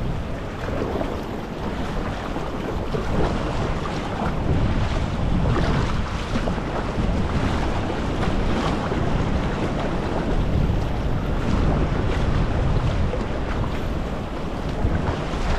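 Wind buffeting the microphone over choppy sea, with waves splashing and sloshing around a kayak.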